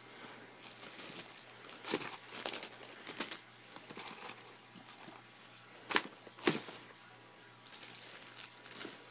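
Rustling and handling of unboxed bike parts and their packaging, with scattered short rustles and a few light knocks, the loudest about two and six seconds in.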